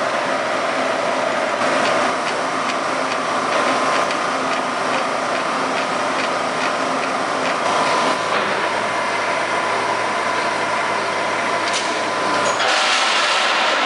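Large Lodge & Shipley engine lathe running, a steady mechanical drone with a regular ticking about twice a second through the first half. Near the end the sound changes to a louder hiss.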